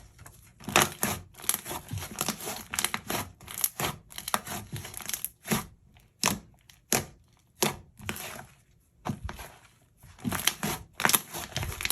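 Thick, glossy slime mixed with snow powder and clay being squished and kneaded by hand, giving a string of irregular crackling, squelching pops with short pauses between squeezes.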